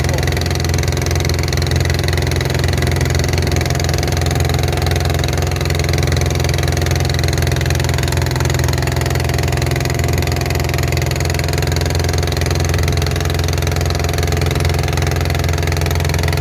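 Long-tail boat's engine running at a steady, unchanging speed, heard from on board.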